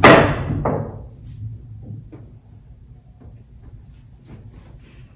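A loud knock on a wooden pool table at the start, a second knock under a second later, then light scattered taps as the ball is played across the table.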